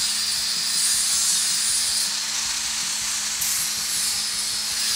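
Angle grinder grinding excess weld bead flush where a new end cap is welded onto thick-walled steel pipe. A steady high grinding hiss of the disc on steel over the motor's constant hum.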